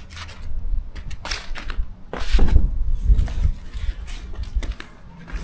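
Irregular clatter and knocks of metal fittings and boxes being handled and set down on a pile, heaviest about two seconds in, over a low rumble.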